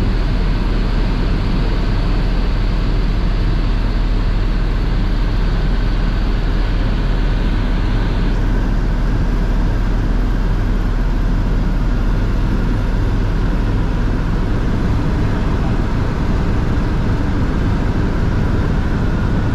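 Helicopter in flight heard from inside the cabin: the steady, loud drone of rotor and engine.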